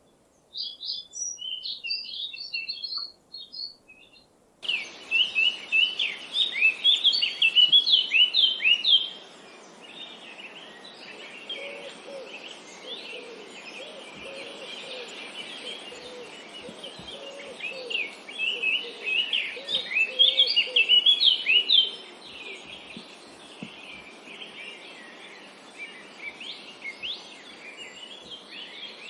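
Small birds chirping in quick, high-pitched bursts. About four and a half seconds in, it changes abruptly to a recording with a steady background hiss and denser chirping from several birds, with fainter lower calls beneath for a while in the middle.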